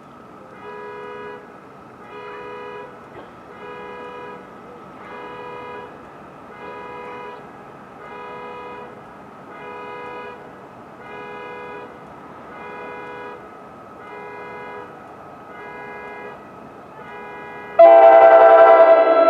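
A faint repeating tone, about one every second and a half, sounds through the first part. About 18 s in, an approaching train blasts a loud chord horn.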